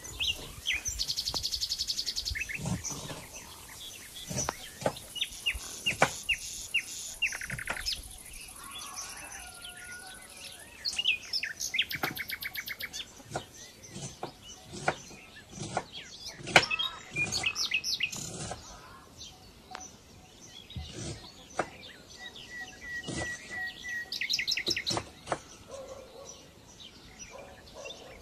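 Birds chirping and trilling, with several fast rattling trills and a short run of whistled notes, over scattered sharp clicks.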